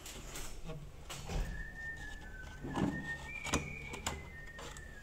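Faint clicks and knocks of a drone's shell and parts being handled during disassembly, with a thin high whistle-like tone that steps up and down in pitch from about a second in.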